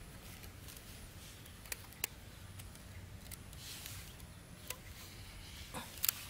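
Bamboo sticks being handled and fitted together: a few sharp light clicks and taps, with soft rustling between them.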